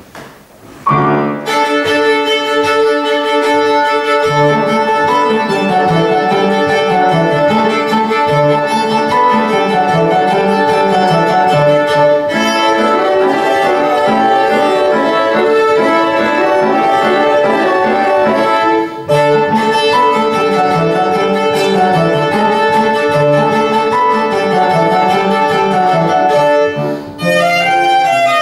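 Viola playing with piano accompaniment, a classical chamber piece that begins about a second in after a brief quiet gap.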